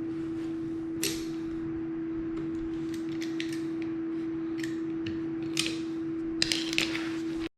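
Light metallic clicks and snaps of hand tools being handled at a motorcycle tire to get at an embedded roofing tack, over a steady hum. The clicks come scattered, most of them close together near the end.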